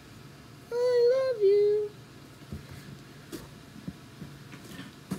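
A person humming a short three-note phrase in a high pitch, about a second long, the last note lower and held. Light clicks from items being handled follow.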